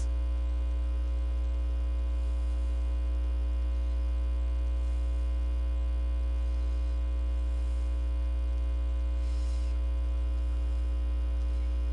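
Steady electrical mains hum in the recording, with many faint higher overtones above a strong low drone.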